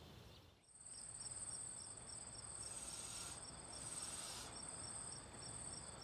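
Night-time crickets calling faintly: one steady high trill and a second, pulsing chirp about four times a second. Both come in about a second in.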